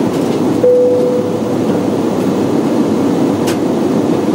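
Steady airliner cabin noise of engines and airflow during descent, with a single chime tone about half a second in that fades over about a second, and a short click near the end.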